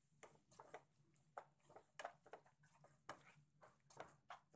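Near silence, with faint, irregular scrapes and taps of a spatula stirring mashed potatoes in a kadhai.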